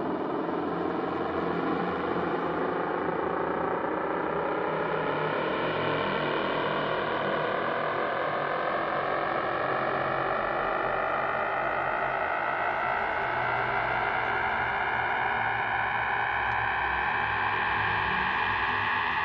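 A sustained, buzzing droning tone rich in overtones, rising slowly and steadily in pitch throughout.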